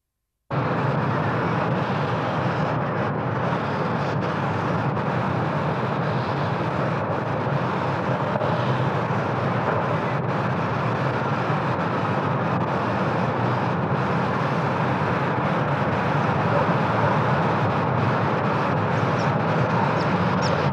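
Steady street traffic noise, an even rumble and hiss that cuts in abruptly about half a second in and holds unchanged.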